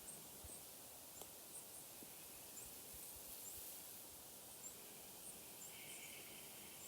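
Quiet outdoor nature ambience: faint, short, high-pitched chirps from small wildlife repeat every half second or so over a soft hiss, with a brief buzz near the end.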